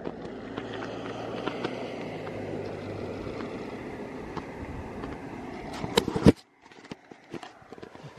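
An SUV driving away on a wet road, its steady road noise carrying on for about six seconds. Near the end come a few sharp knocks, the sound cuts off suddenly, and only faint scattered clicks are left.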